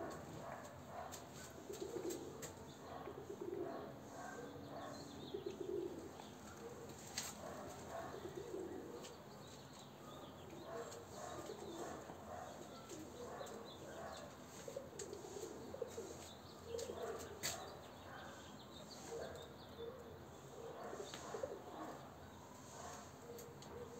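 Domestic pigeons cooing: faint, low, burbling coos repeated at irregular intervals.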